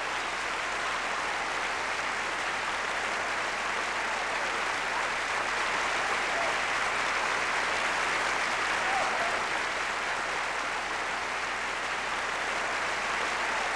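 A large audience applauding steadily, a dense even clapping that swells a little about five seconds in.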